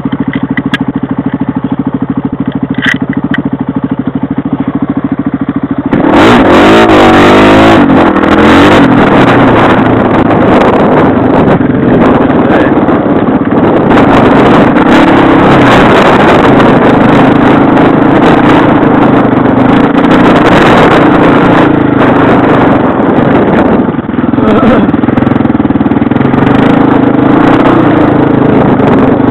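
Motorbike engine idling steadily, then about six seconds in it revs hard as the bike takes off. It keeps running loud at speed over rough ground, with clatter and wind noise.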